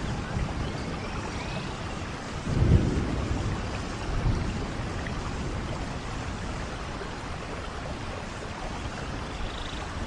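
Rain-and-thunder nature ambience: a steady hiss of rain with a low rumble of thunder about two and a half seconds in and a smaller one about a second later. A few faint high chirps sound over it.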